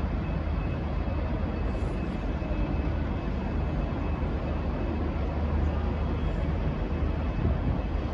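V/Line N class diesel-electric locomotive running steadily at the platform, a continuous low rumble with a faint steady high whine above it.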